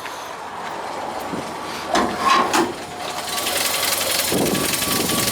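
Original Chevrolet 'stovebolt' inline-six engine of a 1957 Chevy pickup idling steadily, growing louder from about three seconds in. A brief clatter about two seconds in.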